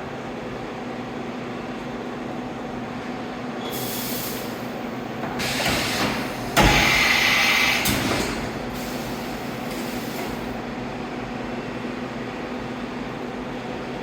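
A CNC vertical machining center running with a steady hum. Several short bursts of air hiss break in, and a sharp clunk comes about halfway through, followed by a louder hiss of a second or so.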